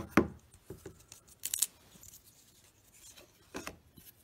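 Baseball trading cards being handled by hand: a few short scrapes and snaps of card stock sliding off and against one another, a second or two apart.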